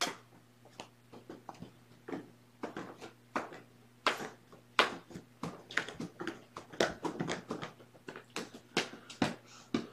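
Irregular light clicks and taps, a few every second with some louder knocks, over a steady low hum.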